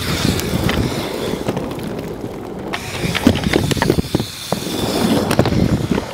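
Inline skate wheels rolling fast over a wooden skate ramp: a steady, dense rumble with scattered sharp clacks from the wheels and frames hitting the surface.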